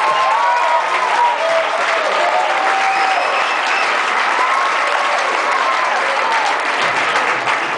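Large audience applauding steadily, with voices calling out and cheering over the clapping.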